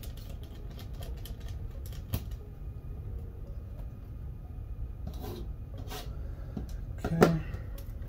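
Small clicks and handling noises of a screwdriver and screws being worked on a laptop's plastic chassis and fan. One sharper knock comes about seven seconds in, over a low steady hum.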